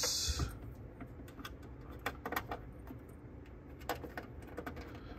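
Cable and plug handling: a few faint clicks and rattles as an RCA plug on a signal-generator lead is fitted into an input socket of a cassette deck, over a low steady hum.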